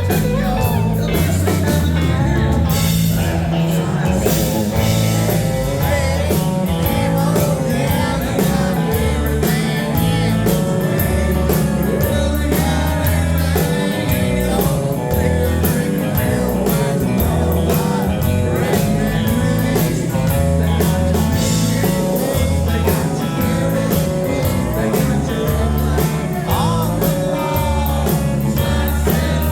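Country-rock band playing live, with a singer over electric guitar, a steady bass line and drums.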